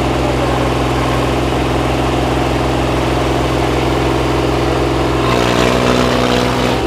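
Sonalika tractor's diesel engine running steadily, close up. Its note changes about five seconds in.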